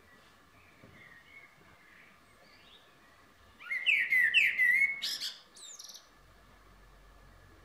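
Male Eurasian blackbird singing: quiet warbling notes, then a loud fluty phrase about three and a half seconds in that ends in a quick high twitter.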